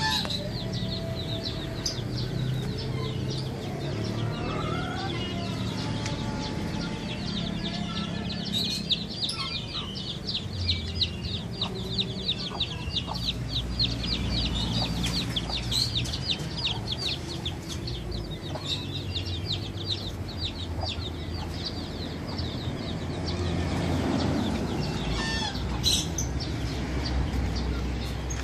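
Outdoor yard ambience: chickens clucking and small birds chirping rapidly and high for much of the first half, over a steady low hum.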